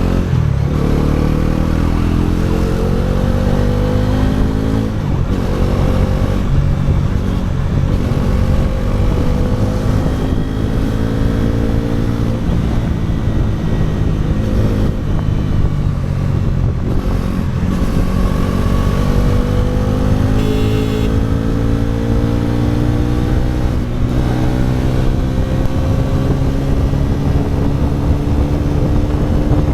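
Bajaj Pulsar NS400Z's single-cylinder engine through its stock exhaust, riding and accelerating through the gears. The pitch climbs, drops at a gear change about five seconds in, and later makes a long, slow climb.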